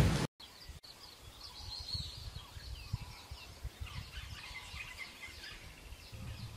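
A louder noise cuts off abruptly just after the start, leaving a faint outdoor ambience of many small birds chirping, with a low rumble underneath.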